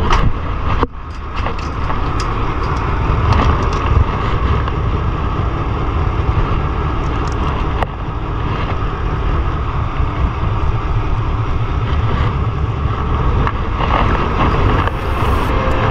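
Steady, loud rumbling noise aboard a small fishing boat at sea, with wind buffeting the microphone.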